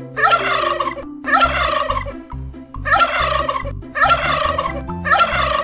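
Turkey gobbling: five rattling gobbles, each about a second long, coming about a second apart.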